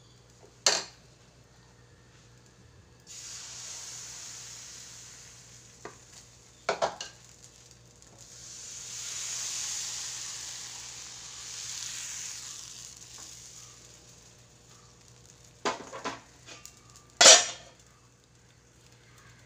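Appam batter sizzling in a hot appam pan: a hiss that comes in a few seconds in, swells and fades away. A few sharp clanks of the pan come before and after it, the loudest near the end.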